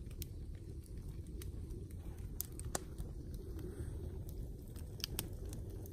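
Wood campfire burning, with scattered sharp pops and snaps from resinous pine over a steady low rumble.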